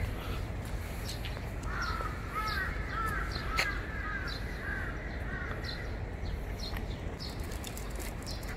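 A crow cawing in a quick run of repeated calls, starting about two seconds in and lasting about three seconds.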